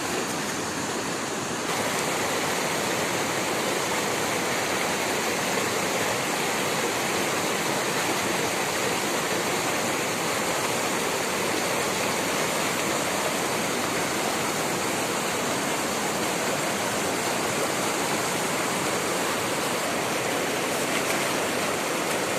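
River water rushing steadily over its bed, an even hiss that does not let up.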